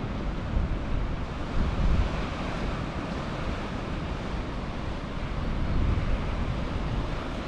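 Wind buffeting the microphone in uneven gusts over a steady wash of surf.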